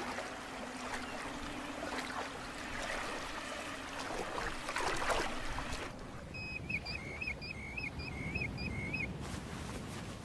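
Footsteps splashing and sloshing through shallow water as a person wades. About six seconds in the splashing stops and a bird calls a quick repeated phrase, about two calls a second, for some three seconds.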